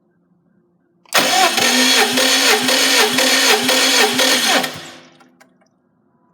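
A Subaru EJ205 turbo flat-four engine being turned over by its electric starter motor for about three and a half seconds without starting, the whine dipping in pitch about twice a second as the engine comes up on compression, then cutting off.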